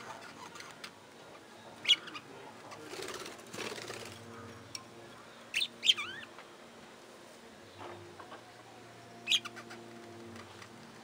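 Budgerigars giving a few short, sharp chirps a couple of seconds apart, with a burst of wing flapping about three seconds in.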